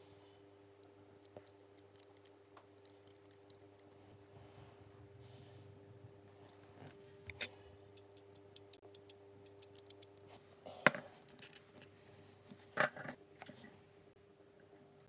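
Light clicks and snips of small hand work on a DC motor's parts and wire, with two sharper knocks near the end, over a faint steady hum.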